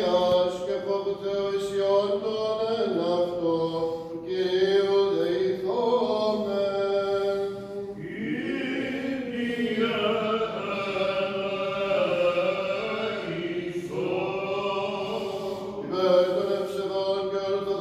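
Byzantine chant of a Greek Orthodox liturgy: a melismatic vocal line with long held and gliding notes, in phrases that change about every few seconds, over a steady low drone.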